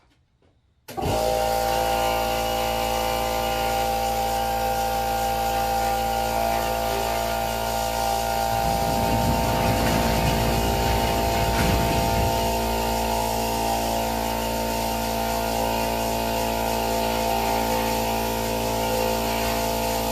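A motor starts about a second in and runs at a steady pitch with a constant, multi-toned hum, without a hammering rhythm.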